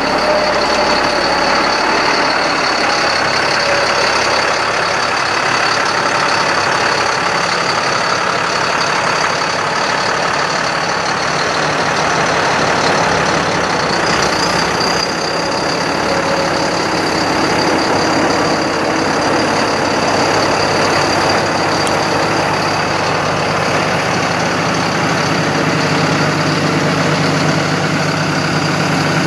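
GMC C7500 truck engine running steadily with its PTO engaged, driving the hydraulics while the Terex Hi-Ranger XT-55 aerial boom is operated. A thin steady high whine sits over the engine, and the low engine hum grows louder near the end.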